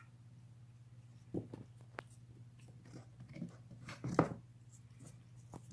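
A cat gnawing on a bone: a few faint, scattered crunches and clicks of teeth on bone, the loudest cluster about four seconds in.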